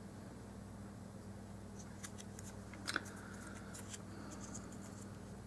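Small crinkles and clicks of sticker paper being handled as its stubborn backing is picked and peeled off, with one sharper click just before three seconds in, over a faint steady low hum.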